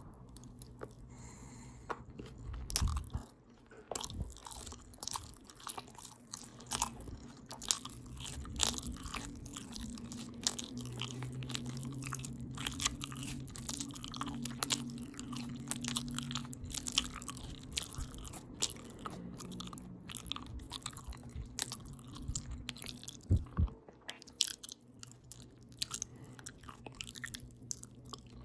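Close-up open-mouth chewing of a potato taco bowl: wet smacking and clicking with some crunching, steady and irregular, with a louder thump about three seconds in and another near the end.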